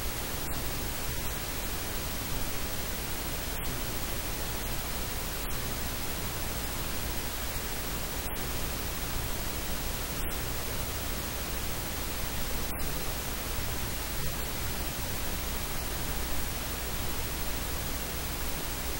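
Steady hiss of static filling the whole sound range, with no speech audible. The hiss drops out for an instant a few times.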